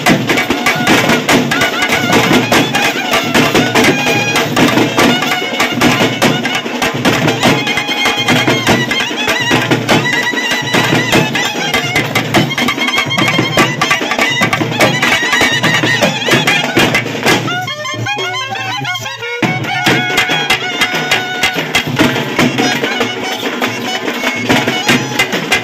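Several clarinets playing a Tamil folk-style melody together in unison, loud and reedy, over a steady beat of thappattam frame drums. The sound briefly thins out about two-thirds of the way through, then the band resumes.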